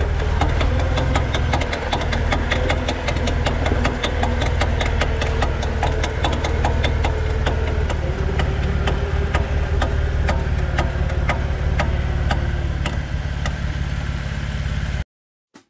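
Jeep Wrangler JK running with a quick, regular clicking from under the front end, heard from beneath the vehicle; the clicking is the noise the owner puts down to the front driveshaft, whose joint boot is ripped and strained by a 4-inch lift. The sound cuts off suddenly near the end.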